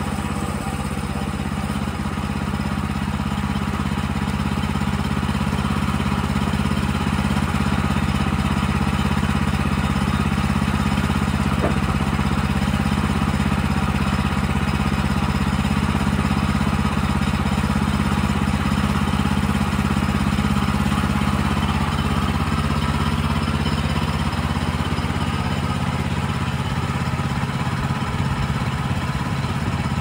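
Small gasoline engine of a Woodland Mills HM130MAX bandsaw sawmill running steadily at idle, with no cut under way; its note shifts slightly about three-quarters of the way through.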